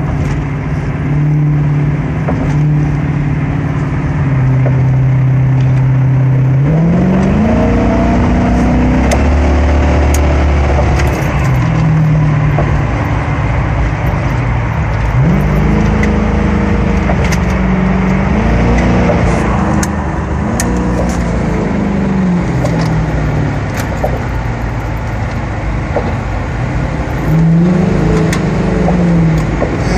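Motor vehicle engines running and being revved, the pitch climbing and falling again several times over a steady engine drone.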